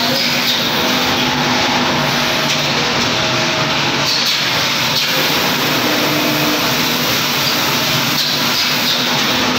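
Peanut air blancher running: a steady rush of air with a faint machine hum underneath, level and unchanging throughout.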